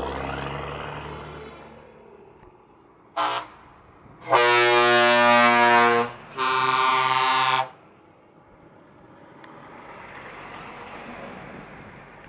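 Truck air horn sounding three blasts: a short toot about three seconds in, then two long loud blasts. Before them a passing truck's engine fades away, and near the end another truck's engine and tyres grow louder as it approaches.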